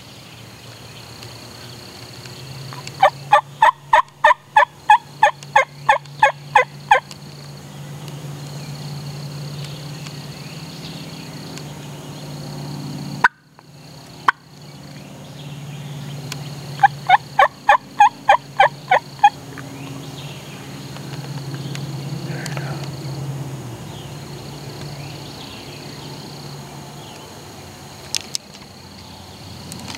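Wild turkey calling in two runs of evenly spaced yelps, about four a second, the first lasting about four seconds and the second, about two-thirds of the way in, a little shorter.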